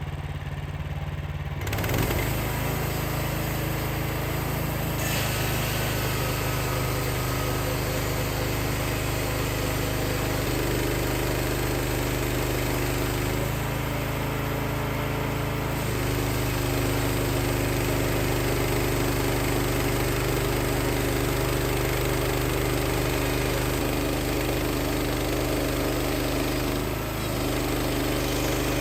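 Wood-Mizer LX55 portable sawmill's small engine running, stepping up in speed about two seconds in and then running steadily with a hiss on top, typical of the band blade cutting through the log.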